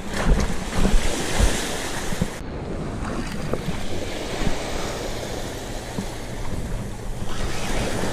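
Surf washing onto the beach with wind buffeting the microphone, and a few low knocks in the first second and a half.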